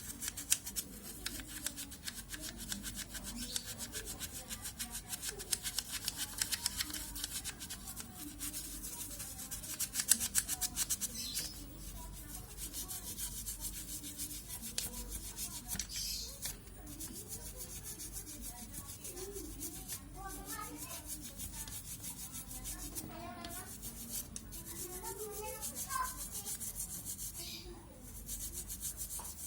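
A stiff brush scrubbing a hard surface in quick back-and-forth strokes, with faint voices in the background.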